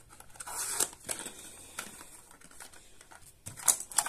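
Perfume packaging handled by hand: cardboard box and wrapping rustling, with scattered light clicks and taps and a few sharper clicks near the end.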